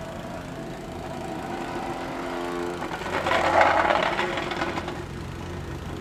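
Small engine of a vibrating plate compactor running steadily. About three seconds in, a louder rushing noise swells and fades over a second or two.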